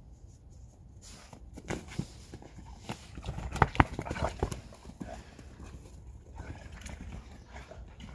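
Two dogs scuffling over a frisbee in deep snow close by: irregular crunching and knocking of paws in the snow, quickest and loudest about halfway through.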